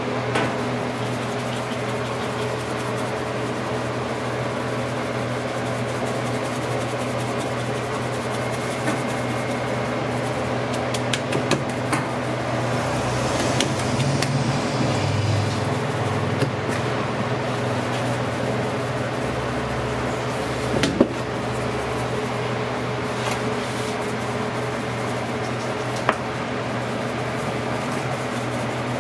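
Steady mechanical hum of kitchen equipment, such as a fan or refrigeration unit, with a few light clicks and knocks from handling here and there.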